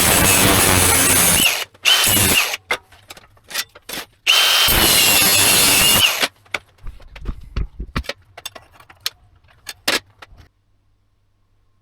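Handheld power tool running hard in two runs, with a high whine over a harsh noise; the whine sags as the tool spins down. A scatter of light knocks and clicks follows as the work is handled.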